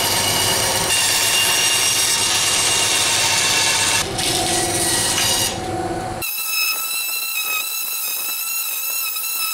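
Band saw running and cutting wood for about the first six seconds, then a random orbital sander running with a steady high-pitched whine.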